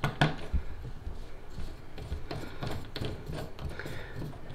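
Light, irregular ticks and scrapes of a foot-lock bathtub drain stopper being screwed into the drain by hand, with one sharper click just after the start.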